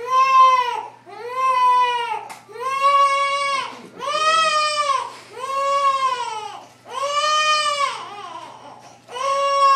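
Newborn baby crying in a string of wails, each about a second long and arching up and down in pitch, with short breaths between them.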